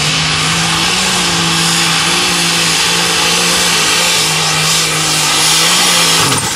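Alcohol-burning Case International light super stock pulling tractor running flat out under load down the track, a loud steady engine note with heavy exhaust noise. Near the end the revs fall away sharply as the throttle comes off.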